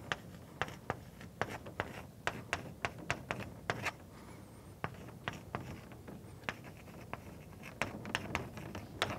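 Chalk writing on a blackboard: an irregular run of sharp taps and short scratches as symbols are written, with a brief lull past the middle.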